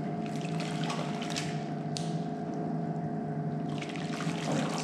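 Hot water sloshing and splashing in a turkey-fryer scalding pot as a chicken held by its feet is dunked in and out, the scald that loosens its feathers for plucking. A steady hum runs underneath.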